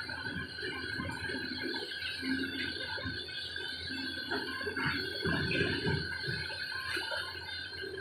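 XCMG XE210i tracked excavator running as it swings its boom, a steady high whine over the engine noise, with irregular knocks and clatter.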